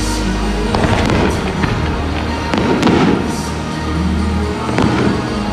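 Aerial fireworks shells bursting several times, with a dense run of crackling near the middle, over steady background music.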